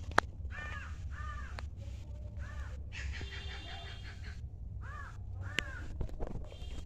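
A crow cawing, short harsh calls in two runs, about five in all. A sharp click comes just after the start, over a steady low rumble.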